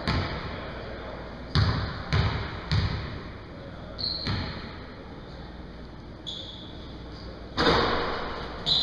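A basketball bounced on a hardwood gym floor: a few sharp thuds about half a second apart as the shooter dribbles at the free-throw line, with voices in the gym that grow louder near the end.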